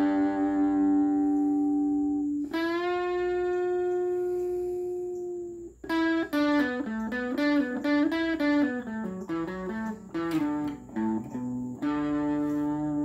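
Guitar playing a slow melody with long ringing notes: one held note bent slightly into pitch, then a quicker run of notes stepping down, and another held note near the end.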